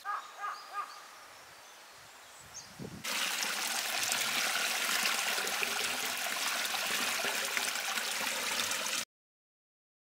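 A small flow of water running over grass and splashing into a drain grate, a steady rushing trickle that starts about three seconds in and cuts off abruptly near the end. A few short bird chirps come before it, in the first second.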